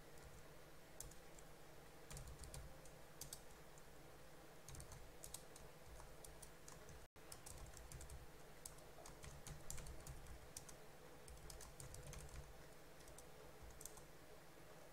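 Faint computer keyboard typing: quick, irregular keystrokes over a low steady hum, with the sound cutting out for an instant about halfway through.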